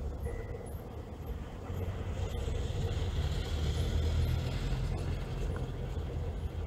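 A Škoda 105/120-series saloon driving past slowly over cobblestones. Its engine rumble and tyre noise build to a peak about four seconds in, then fade as it moves away.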